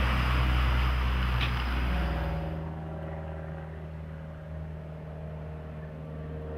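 Engine noise from a vehicle: a loud low rumble that falls away about two and a half seconds in, leaving a quieter steady hum.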